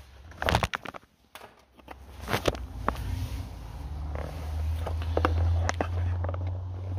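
Handling noise from a handheld camera being fumbled close to the microphone: a run of knocks and clicks, with a low rumble building from about three seconds in.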